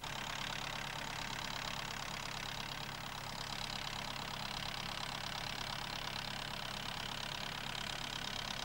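Ferguson TE20 tractor engine running steadily at an even speed.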